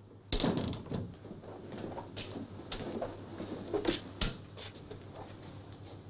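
A door shuts with a thud about half a second in. A run of sharp clicks and knocks follows as the switches and dials on a laboratory control panel are worked.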